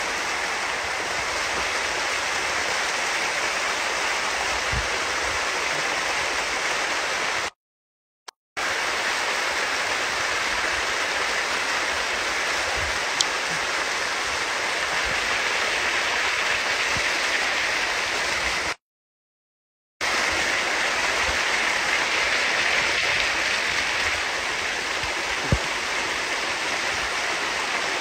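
Rain-swollen arroyo rushing over rocks and a small cascade: a loud, steady rush of water. The sound cuts out completely twice, for about a second each time, once near the middle and again about two-thirds of the way through.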